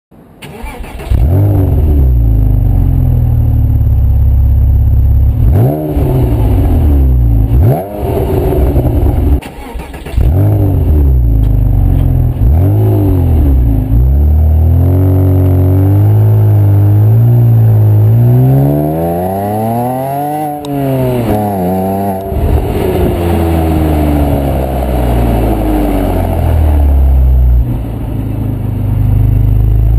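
Porsche Boxster S 3.2-litre flat-six breathing through a Milltek cat-back exhaust and Cayman manifolds, heard close at the tailpipes. It starts about a second in and idles with a few sharp rev blips. From about fourteen seconds it pulls away, the pitch climbing and then dropping at a gear change near twenty seconds, and runs on under way.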